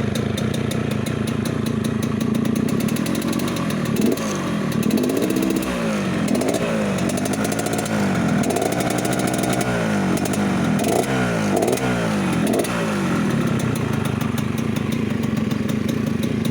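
Yamaha RX-King 135 cc two-stroke single-cylinder engine on its standard exhaust, with the growling 'ngorok' exhaust note. It idles, is revved in a run of quick throttle blips from about four seconds in, then settles back to idle after about twelve seconds.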